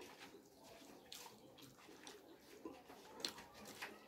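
Faint wet chewing and mouth sounds of a person eating mutton with his fingers, broken by a few sharp clicks, the sharpest about three seconds in.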